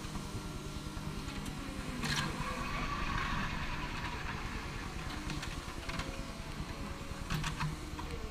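Clark forklift engine running steadily, with a burst of hissing noise about two seconds in and a few light clicks.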